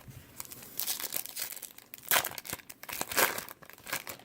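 Baseball card pack wrapper being torn open and crinkled by hand, an irregular run of crackles with the loudest ones about halfway through and again a second later.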